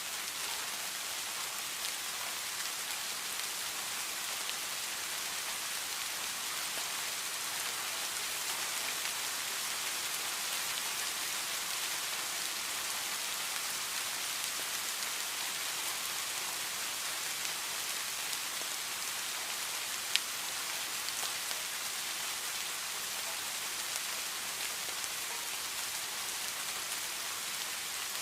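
Steady heavy rain falling as an even hiss, with one sharp tap about two-thirds of the way through.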